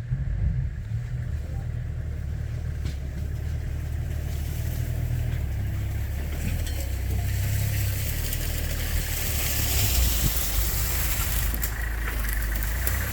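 Vehicle engine running steadily with a low rumble, and a hiss that builds from about four seconds in.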